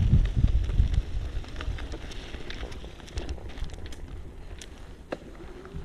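Wind buffeting the microphone of a moving e-bike, loud at first and dying down, with scattered crackles and clicks of tyres rolling over a dirt and gravel trail.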